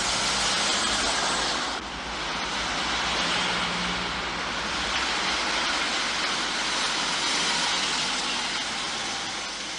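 Mercedes saloon's engine running as the car drives into a garage, with a steady even rush of engine and tyre noise that dips briefly about two seconds in.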